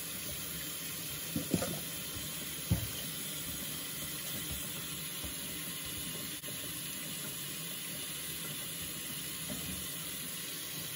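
Kitchen tap running steadily, cool water pouring over chopped cabbage in a stainless mesh strainer in the sink. Two short knocks stand out, about one and a half and nearly three seconds in.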